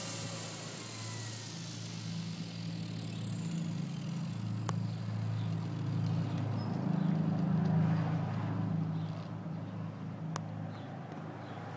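Walkera V370D05 RC helicopter's electric motor and rotor spinning down on the ground, a high whine falling away over the first two or three seconds. Under it a low steady hum, louder around seven to eight seconds in, with two sharp clicks.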